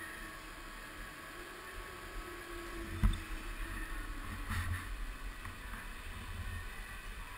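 Go-kart engine running, heard as a low, muffled hum through the camera housing, with a single sharp knock about three seconds in.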